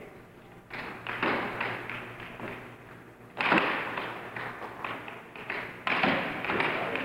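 Air hockey puck struck by mallets and clacking off the table's rails during play. A run of quick knocks starts about a second in, then two louder hits about three and a half and six seconds in, each followed by a quick run of clacks that fades.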